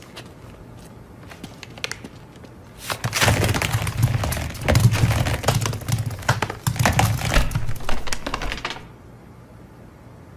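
Dozens of lemons spilling from a burst paper bag onto a hard floor. There is a rapid clatter of thuds and bounces that starts about three seconds in and lasts about six seconds. Before that, a few faint footsteps can be heard.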